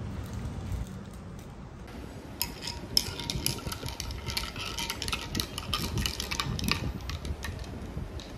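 A straw stirring a milky coffee in a ribbed drinking glass, with rapid clinks against the glass for about four and a half seconds from roughly two seconds in.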